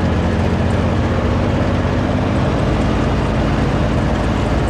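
John Deere riding lawn tractor running at a steady engine speed as it drives across the lawn mowing, a constant loud drone with no change in pitch.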